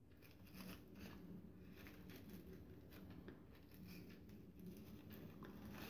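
Faint rustling and crinkling of crepe paper handled by fingers as a petal is wrapped and pressed around a paper tulip head, over a low steady hum.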